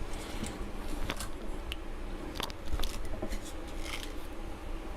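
Light clicks and rustles of cookie dough being reshaped by hand on a foil-lined tray, with a handful of sharp ticks spaced irregularly through it.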